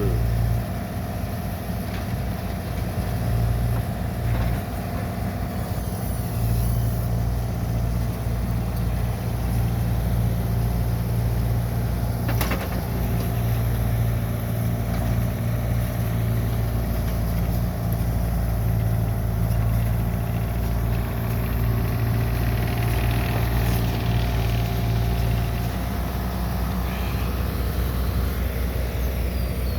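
Bobcat mini excavator's diesel engine running steadily as the machine works, with one sharp knock about twelve seconds in.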